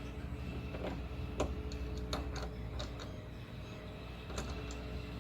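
T-handle driver turning tight bolts in a car door, giving a string of light, irregular clicks and ticks.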